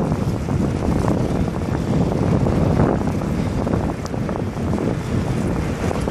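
Steady wind rumble buffeting the microphone of a camera mounted on a moving road bike.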